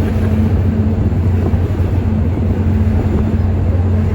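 Steady low engine drone with a constant hum and an even rumble of noise, heard from inside a car.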